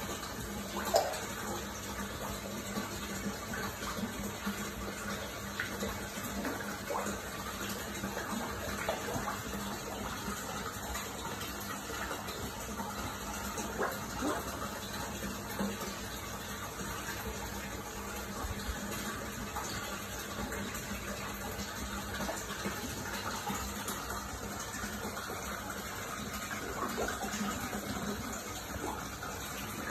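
Water pouring steadily into a koi pond from an inlet spout, with small splashes from koi at the surface and one sharper splash about a second in.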